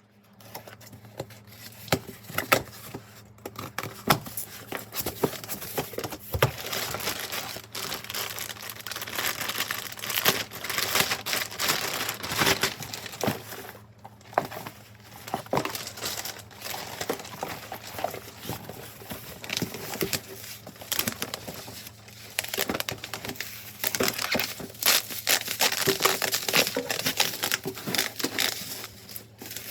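Laptop packaging being unpacked by hand: plastic and paper crinkling and rustling, with scattered clicks and knocks, over a faint steady low hum.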